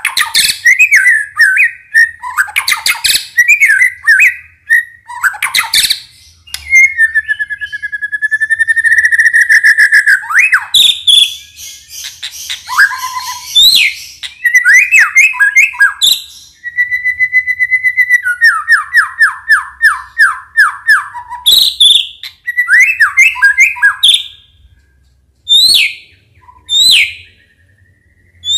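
White-rumped shama (murai batu) singing a long, varied song of loud clear whistles, held whistles, fast rattling trills and sharp upward chirps. The song breaks into shorter phrases with brief pauses near the end.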